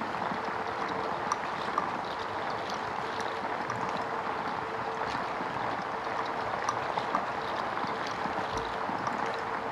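Steady rushing, stream-like noise bed with a faint held tone and scattered light clicks, an ambient texture played from the looping and sampler rig of a live electronic set.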